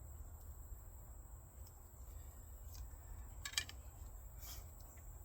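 Quiet outdoor background: a low steady rumble and a steady high-pitched insect drone, with a short sharp click about three and a half seconds in and a fainter one about a second later.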